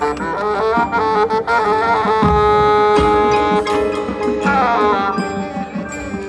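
Marching band playing: quick stepping melodic runs, then a heavy low hit about two seconds in that opens a long held chord, and a quick falling run near the end.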